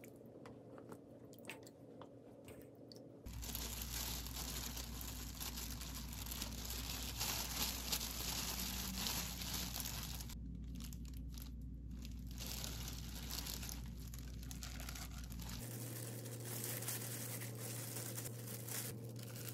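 Hands in thin plastic gloves stuffing cut cucumbers with chili-flake and chive seasoning: the gloves crinkle and rustle, with wet crunching of the filling. This handling noise starts suddenly about three seconds in; before it there is only a faint low hum with a few light clicks.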